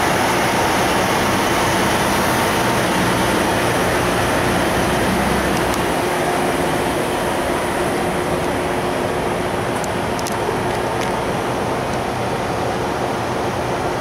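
Large diesel engine of a heavy-haul truck idling steadily, with a deep, even rumble that gets a little fainter around halfway through.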